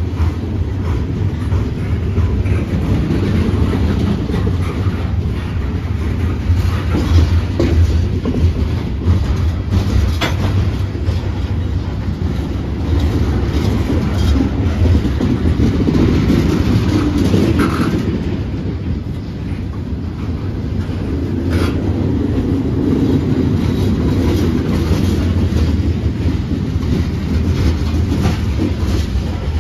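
Loaded coal train rolling slowly past: a steady low rumble of wheels on rail, with scattered clicks and clunks.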